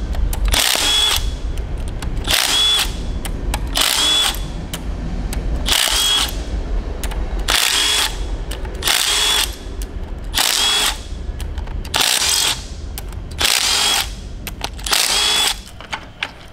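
Compact Milwaukee cordless driver spinning out cam cap bolts one after another on a cylinder head: about ten short whirring runs, roughly one every one and a half seconds.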